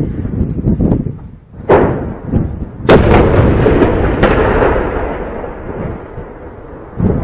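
Tank cannon firing: three heavy booms over about two and a half seconds, the second the loudest, followed by a long echo.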